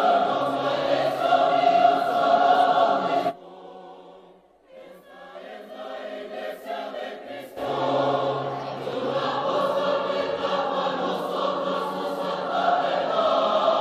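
Large choir singing a hymn. About three seconds in the sound drops abruptly to a much softer, thinner passage, and the full choir comes back about eight seconds in.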